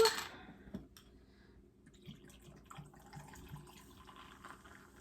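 A drink poured from a bottle into a glass of ice, faint, with a few soft glugs, starting about two seconds in. A single knock on the table comes just before it.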